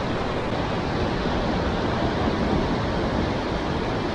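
Rough sea surging and breaking against the rocks below, a steady rushing noise.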